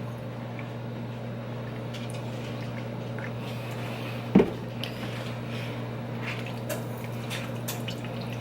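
Almond milk poured into a bowl of cake mix, with small wet liquid sounds over a steady low hum and one sharp knock about halfway through.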